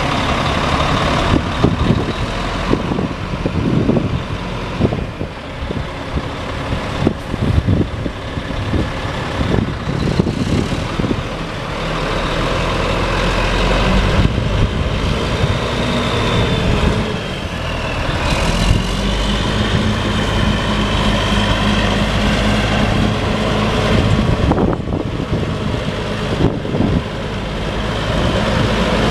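Caterpillar C12 inline-six turbo diesel of a Sterling L9500 semi truck running, with a string of knocks and rattles through the first part. About two-thirds of the way through, the engine note steps up to a higher speed.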